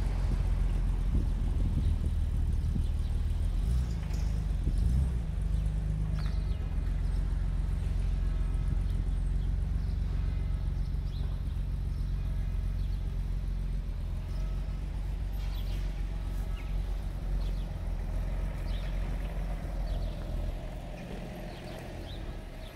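Motor vehicle engine running close by, a steady low rumble that eases off near the end.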